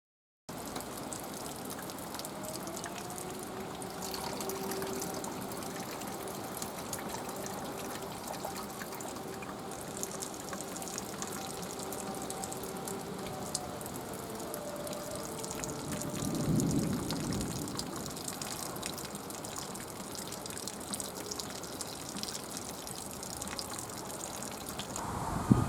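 A distant fire-alarm siren sounding one long steady tone of about twelve seconds, winding up and then dying away: the siren call-out signal for the volunteer fire brigade. It sits over a steady background hiss, with a brief low rumble near the middle.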